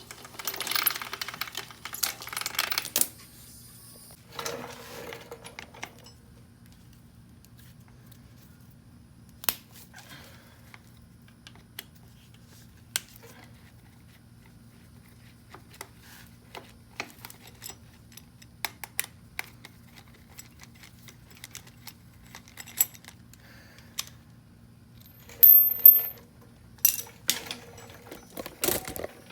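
Metallic clinks and rattles of hand tools and drive-chain parts as the chain is taken off a 2001 Honda CR250 dirt bike. Dense clusters of clinks come near the start and again near the end, with scattered single clicks between, over a faint steady hum.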